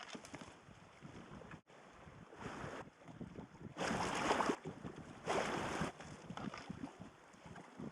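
Packraft paddle strokes: three splashy pulls of the blade through river water, about a second and a half apart, the middle one loudest, over a faint crackle of moving water.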